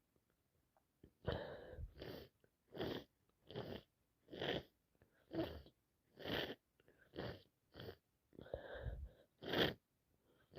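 A woman with a head cold sneezing and sniffing through a congested nose, a rapid run of about ten short bursts roughly a second apart.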